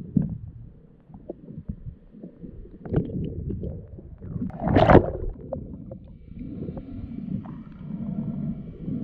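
Underwater sound picked up by a freediver's camera: muffled rumbling and knocks of water moving around the diver and gear, with a louder rushing burst about five seconds in. From about six seconds a faint steady whine with several tones comes in under the water noise.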